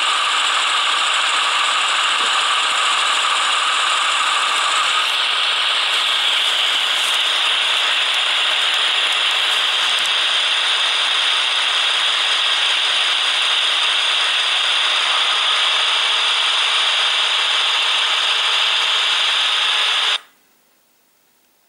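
H0-scale model train running: motor, gears and wheels on the track make a loud, steady mechanical whirring rattle. Its tone shifts slightly about five seconds in, and it cuts off abruptly near the end.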